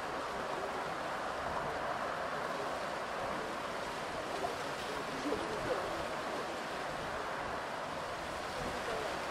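Airbus A330-900neo's Rolls-Royce Trent 7000 jet engines at takeoff thrust, heard far off as a steady, even rushing roar.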